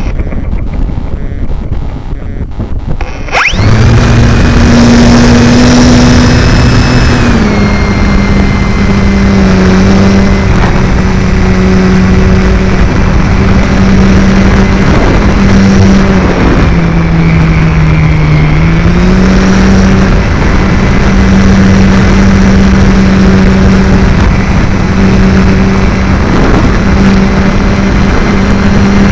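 Electric motor and propeller of a Multiplex FunCub RC plane, heard close up from a camera on the plane. For about three seconds there is only a quieter hiss, then the motor throttles up suddenly to a loud steady whine and buzz for the takeoff. The pitch sags briefly about halfway through as the throttle is eased, then comes back up.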